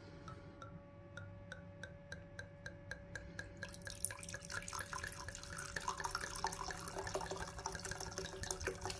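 Liquid dripping in a quiet, even run of drops, about three a second. From about four seconds in it turns into a denser, continuous trickling pour.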